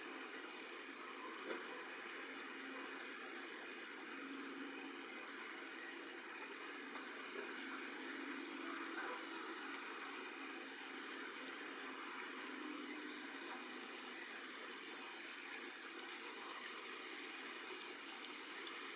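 Young goldfinches giving short, high chirps, singly or in twos and threes, repeating regularly about every half second to a second, over a steady hiss.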